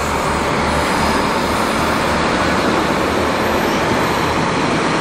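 A diesel limited express train pulling into the station on the next track, its engines and wheels making a steady, unbroken noise.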